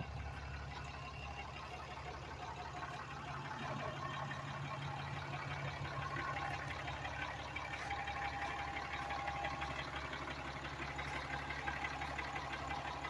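2018 Ram 3500 pickup's engine idling steadily.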